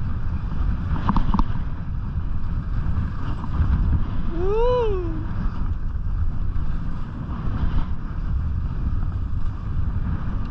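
Wind buffeting an action camera's microphone while skiing downhill, a steady low rumble mixed with the hiss of skis on packed snow. About halfway through, a short pitched sound rises and then falls over roughly a second.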